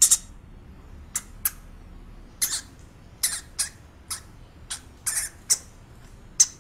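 Hamster squeaking: a string of about a dozen short, high-pitched squeaks at uneven intervals, sometimes in quick pairs.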